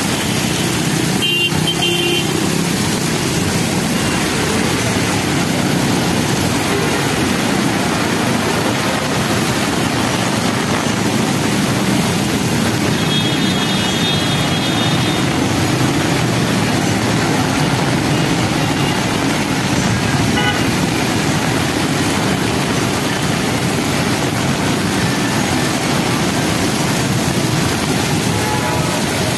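Heavy monsoon rain pouring steadily, with traffic driving on the flooded road. A vehicle horn sounds briefly about a second and a half in, and again about halfway through.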